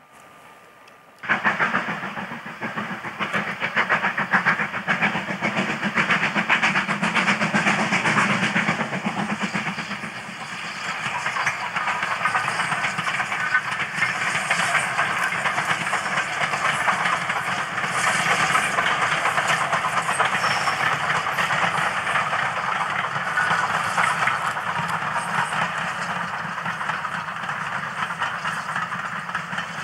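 Steam locomotive hauling a passenger train past, its exhaust and running gear loud and steady; the sound starts abruptly about a second in.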